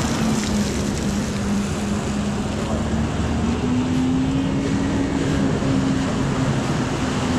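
Jet ski engine running as the craft carves circles on open water: a steady drone that rises a little in pitch about halfway through, over a wash of water and wind noise.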